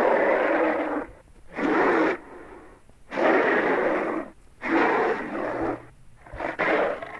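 Tyrannosaurus rex sound effect: a series of about five rough, breathy roars, each around a second long, with short pauses between them.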